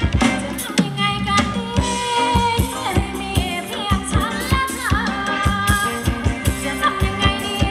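Thai ramwong dance music played by a live band: a singer's melody over a steady, evenly spaced drum beat.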